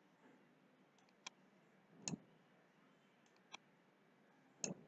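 Computer mouse clicks, a few short sharp ones spread out over near silence.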